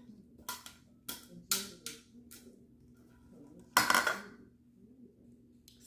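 A plastic container tapped several times against a glass mixing bowl as chopped red onions are shaken in, then a louder clatter with a short ring about four seconds in.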